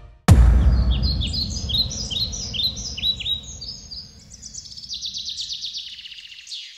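A sudden deep hit about a quarter second in, its low rumble fading out over several seconds, with birds chirping in quick repeated high calls over it and a fast trill near the end.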